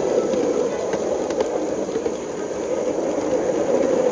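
3.5-inch gauge LBSC Juliet coal-fired live steam locomotive running along the track: a steady rushing noise with a few sharp clicks.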